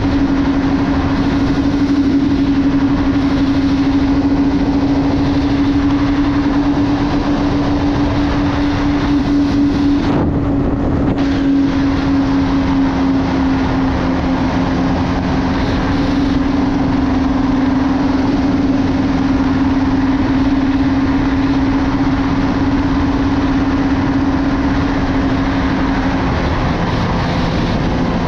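Ski-Doo Renegade Adrenaline snowmobile running at a steady cruise: a constant engine drone over a broad rush of track and air noise, the engine note shifting briefly about ten seconds in and dropping lower near the end.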